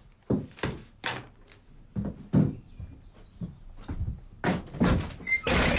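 Footsteps on a wooden floor, then a wooden door being handled and opened near the end.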